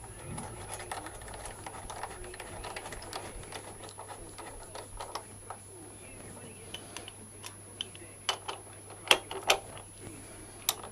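Small irregular metallic ticks and rattles of a bolt and bracket being worked by hand, with a few sharper metal clinks in the last few seconds.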